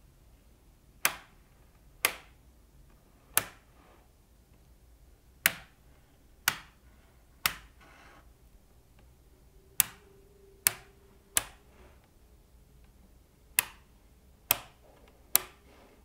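Slabs of small magnetic balls snapping together end to end, twelve sharp clicks with a brief ring, in three-click groups.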